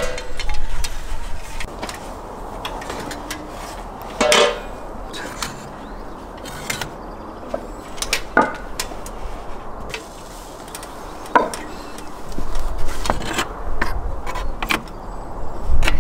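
Scattered knocks and clinks of bricks and a metal lid being handled on a brick tandoor, the loudest about four seconds in, over a steady low rumble.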